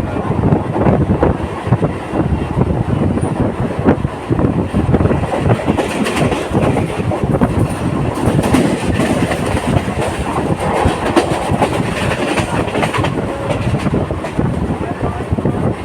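Indian Railways local passenger train running, with a continuous loud rattle and clatter from its wheels and coaches.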